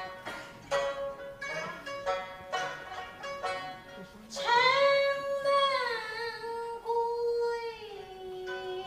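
Suzhou pingtan music: pipa and sanxian pluck a run of short notes. About four seconds in, a singer enters on one long held note that steps down in pitch twice, with the plucked strings going on behind it.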